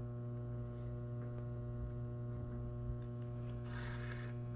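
Steady low hum with a stack of buzzy overtones, with a short rush of hiss a little under four seconds in.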